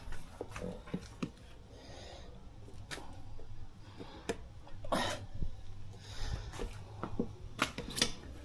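Tire spoons prying a motorcycle tire's bead off a cast mag wheel: scattered clicks and knocks as the irons work against the rim and rubber, with a louder scrape about five seconds in.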